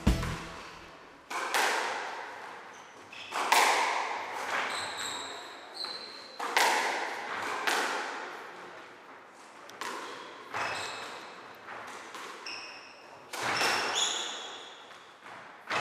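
Squash ball being struck with rackets and hitting the court walls, a sharp crack every one to three seconds, each echoing around the court. Short high squeaks of court shoes on the wooden floor come between the hits.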